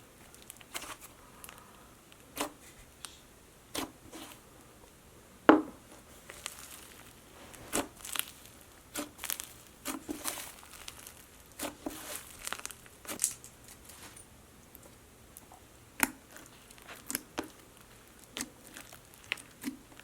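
Hands handling plastic slime containers: irregular clicks, taps and crinkling rustles, with one sharper knock about five and a half seconds in.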